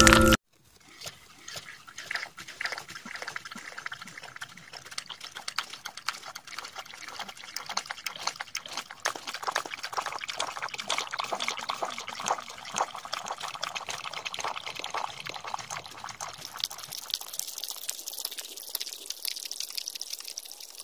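A puppy eating from a bowl: a steady run of small wet clicks and smacks from lapping and chewing.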